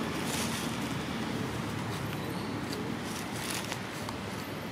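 Steady outdoor background noise with a faint low hum and a few brief soft crackles.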